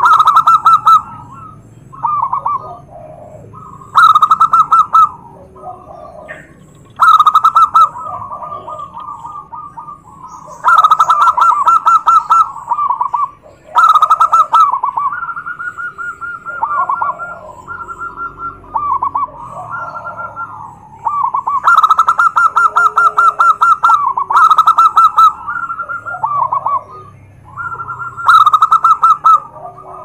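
Several zebra doves (perkutut) cooing over one another. Loud, rapid trilling coos about a second long come every few seconds, with softer coos in between.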